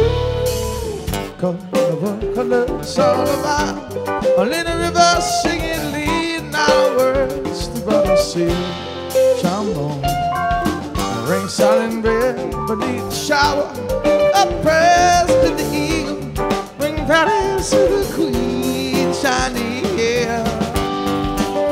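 Live rock band playing an instrumental jam: electric guitar lead with bent, wavering notes over bass guitar and drum kit.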